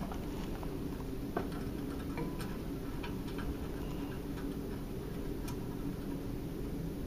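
Light, irregular clicks and ticks of nuts being finger-tightened onto the bolts of a pole-mounting bracket, over a low steady hum.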